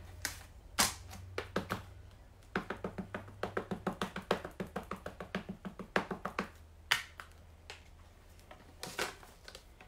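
An ink pad dabbed quickly and repeatedly onto a rubber stamp, a fast run of about five light taps a second lasting some four seconds, with a few single knocks and clicks before and after as the pad and stamp are handled.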